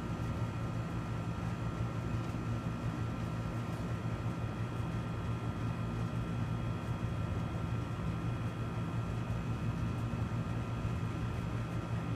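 Steady low mechanical hum with a few faint, steady high whining tones, unchanging throughout.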